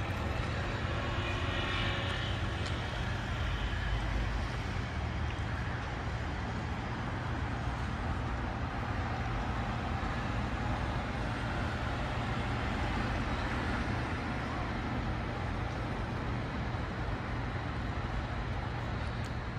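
Steady road traffic noise: cars driving through a wide city intersection, a low engine and tyre rumble that swells and eases slightly as vehicles pass.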